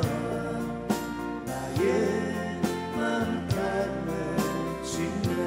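Live folk band playing: acoustic guitars over drums and keyboards, with a slow, steady beat.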